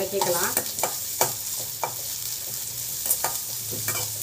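Sliced onions sizzling in hot oil in an aluminium kadai, stirred with a slotted metal ladle that clinks and scrapes against the pan a few times.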